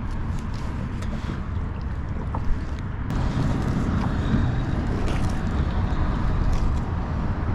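Steady wind noise on the microphone over open water, with a few faint taps of a knife on a cutting board as pilchards are chopped into chunks for chum.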